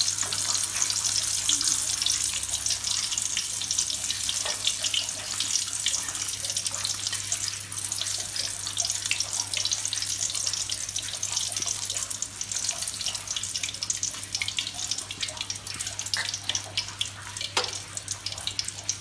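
Whole small shrimp deep-frying in hot oil in a wok: a steady, dense sizzle with fine crackling, easing a little in the second half.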